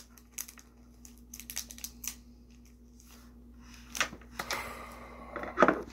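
Light crinkling and scattered small clicks of a chocolate bar's wrapper and a broken-off piece being handled at a table, over a steady low hum, with a brief vocal sound near the end.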